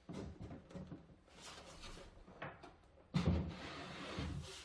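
Pieces of timber being handled and set down on a workbench: scattered wooden knocks and rubbing, with a louder thud about three seconds in.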